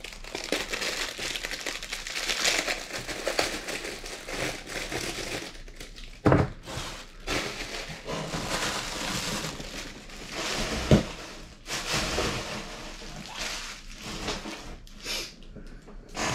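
Packaging rustling and crinkling as the parts of a ring light kit are unwrapped and handled, with two sharp knocks about six and eleven seconds in.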